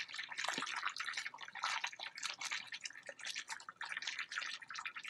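Water dripping and splattering in many quick, irregular drops, running off a just-washed ball cap and the basket of a hand-powered Avalon Bay EcoSpin spin washer as it drains after the wash cycle.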